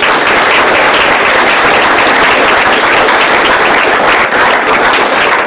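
Audience applauding: a steady round of hand clapping from a roomful of people.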